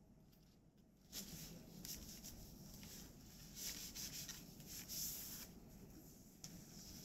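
Faint rustling and scraping of tree-bark fibre threads rubbing against each other and the wooden parts of an Ainu backstrap loom as the weaver works the warp by hand, in uneven strokes with a few light clicks. It begins about a second in.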